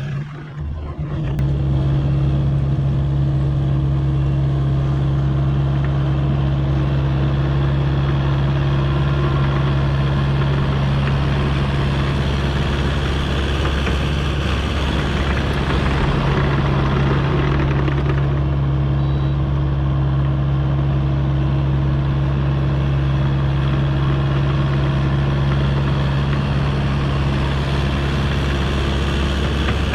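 Kubota U55-4 mini excavator's diesel engine running steadily under work. It comes up loud about a second and a half in, with a harsher, noisier stretch around the middle.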